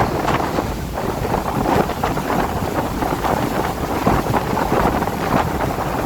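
Wind blowing hard in rain, gusting against the microphone with a dense, rushing noise.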